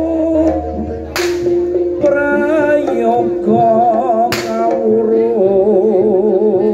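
Live jaranan music: a vocalist holds drawn-out notes of a Javanese sung verse with vibrato over steady gamelan-style tones. Two sharp hits cut through, about a second in and again past the middle.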